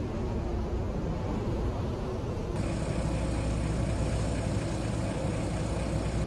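Steady low engine rumble of a large vehicle, with an abrupt change in the higher background noise about two and a half seconds in.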